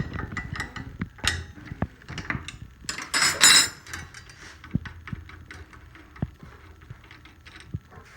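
Metal clicks and clanks as a dado blade set is handled on a SawStop table saw's arbor, with a louder ringing metallic rattle about three seconds in.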